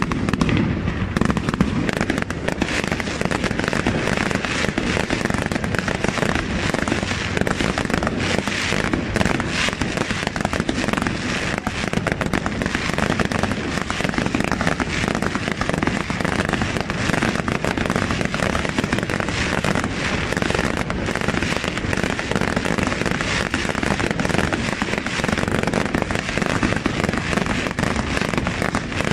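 Aerial fireworks display: a dense, unbroken run of shell bursts and crackle, with many bangs overlapping and no pause.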